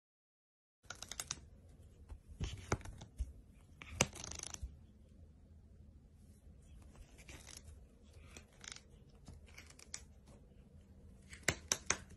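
A cat clawing and biting at the mesh of a soft pet carrier: irregular scratchy rasps and sharp clicks that come in clusters, loudest about a second in, around four seconds in and again near the end.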